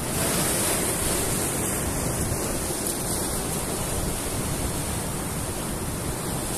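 Sea surf breaking and washing over shore rocks: a steady, even rushing.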